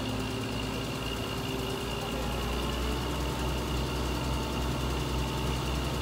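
Heavy engines idling steadily: a low, even drone with a faint, steady high tone above it.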